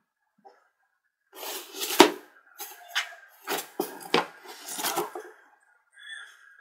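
Cats pawing and scrabbling through the holes of a homemade cardboard box toy: a run of scratches and knocks on the cardboard starts about a second and a half in, with the loudest knock about two seconds in.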